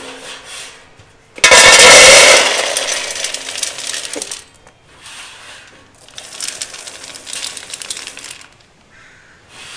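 Hardwood smoker pellets, a hickory and oak mix, poured from a scoop into a small steel pail, rattling against the metal. A loud pour starts about a second and a half in and fades over a few seconds, then a second, quieter pour comes near the end.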